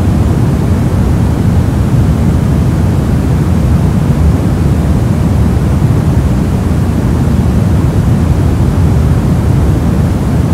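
Steady, unbroken soft noise: a deep, even hiss-rumble weighted toward the low end, with no tones or clicks in it.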